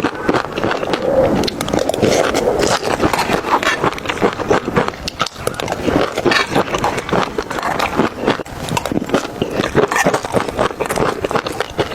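Close-up eating sounds: a person biting and chewing food, with many small crunching clicks and scrapes.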